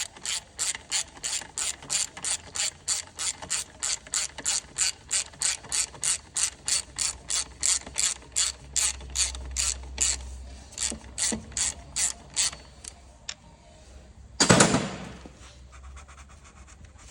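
Hand ratchet clicking steadily, about three clicks a second, as a bolt is turned to tension the alternator belt. The clicking stops about twelve seconds in, and a short, louder clatter follows near the end.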